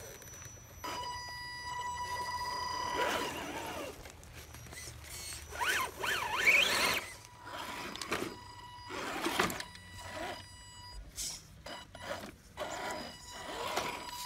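Electric drive motors of RC crawler trucks whining steadily while they crawl and winch over rocks, with irregular scrapes and knocks of the trucks on stone. A few quick rising-and-falling whistles come through around the middle.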